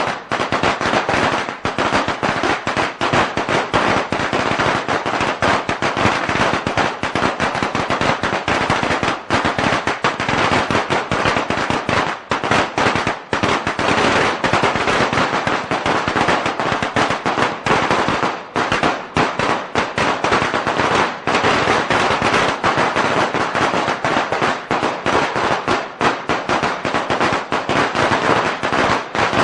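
A long string of firecrackers going off: a dense, continuous rapid-fire crackle of sharp bangs with no break.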